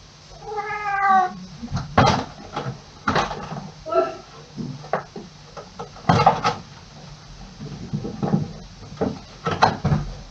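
A cat meows once near the start, the call falling in pitch, followed by a series of sharp thumps and knocks as the cat leaps up onto the ceiling lamp and drops back to the bed.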